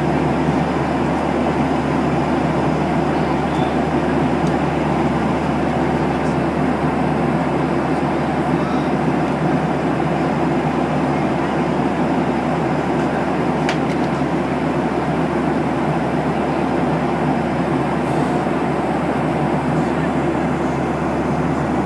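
Airliner cabin noise in flight: the steady, even rush of jet engines and airflow heard from inside the passenger cabin.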